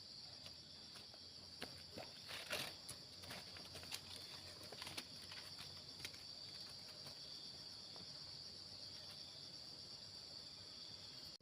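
Steady high-pitched insect chorus, crickets or similar, with scattered light rustles and clicks in the first half.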